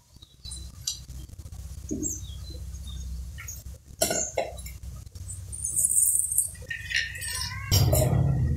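A steel spoon and a stainless steel tumbler clinking and scraping together as a toddler handles them, a few sharp clinks, two close together near the middle. Underneath runs a low steady hum that grows louder near the end.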